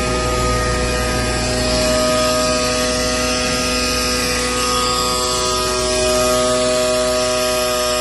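Steady machinery hum with several constant tones over a low rumble and a hiss.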